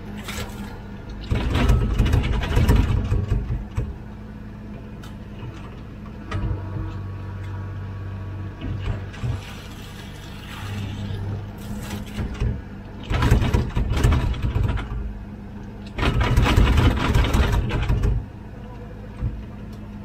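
Komatsu PC16 mini excavator's diesel engine running steadily, with three louder stretches of a second or two each (about a second in, about thirteen seconds in and about sixteen seconds in) as the engine and hydraulics take load while the bucket digs and loads soil.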